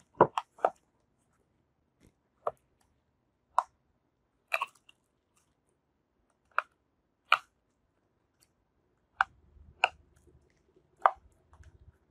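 Plastic case of a Seagate external hard drive being pried open with a thin steel tool: about a dozen sharp, irregular clicks and cracks as the case's locking clips and glue give way.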